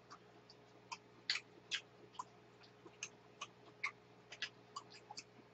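Faint close-up eating sounds: irregular wet clicks and smacks of chewing, about three to four a second.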